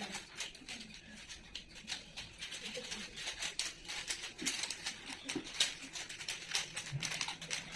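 Rubik's cubes being turned quickly, a steady run of small plastic clicks and clacks.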